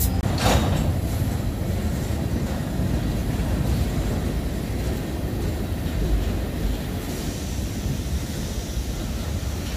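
Freight train's tank cars and flatcars rolling past close by: a steady low rumble of steel wheels on rail, with one sharp knock about half a second in.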